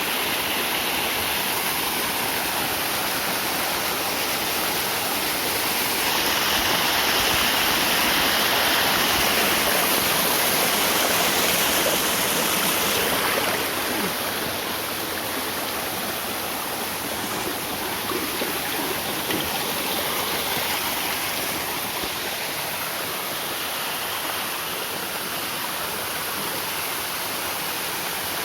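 Waterfall: falling water making a steady, loud rushing noise, a little louder for several seconds in the first half.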